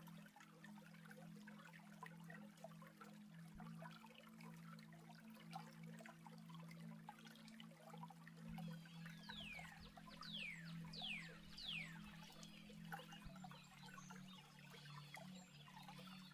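A small stream trickling and babbling. About halfway through, a bird gives a run of about five whistled notes, each sliding downward. Under it runs a soft, low, held drone that shifts pitch twice.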